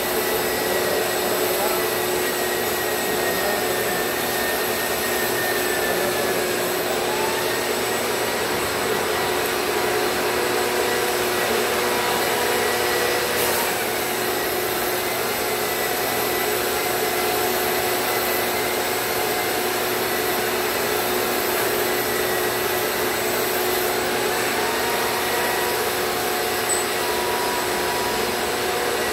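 RIDGID shop vacuum and the hose-connected long-reach drywall sander running steadily, with dust being pulled off a popcorn ceiling being sanded. A steady, unbroken whining hum, a few of its tones drifting slightly in pitch.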